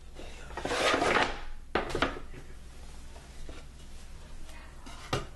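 Wooden drawer panels of an IKEA HEMNES dresser being handled: a rustling scrape about a second in, then two sharp wood knocks, and another knock near the end.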